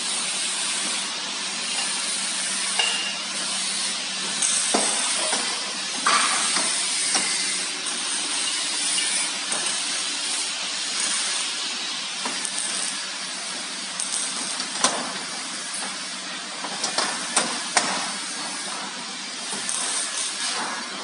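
Steady hiss with a low hum under it, broken by scattered sharp knocks and clanks of metal parts being handled, a few of them in quick succession near the end.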